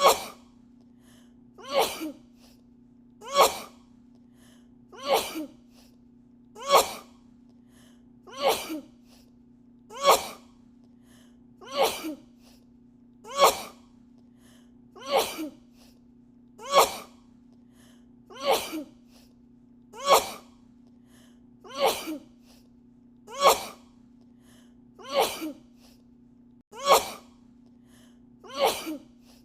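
A woman sneezing over and over in a fit, about eighteen sneezes evenly spaced roughly every 1.7 seconds, some with a quick smaller catch right after, over a steady low hum.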